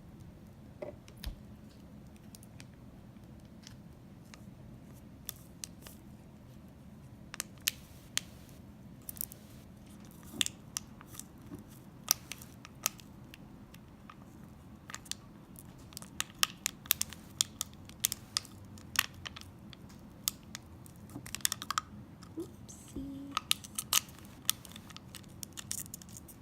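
Scattered sharp clicks and light taps of the slime kit's small plastic containers and packets being handled, coming more often in the second half.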